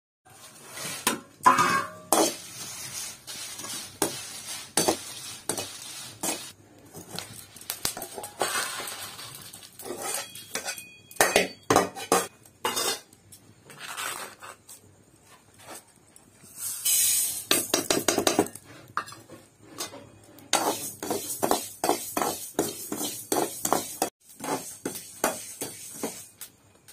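Metal cookware and utensils clinking, knocking and scraping: a hammered metal kadai and steel pots handled with spoons, in many short sharp clicks. There is a brief hiss about seventeen seconds in.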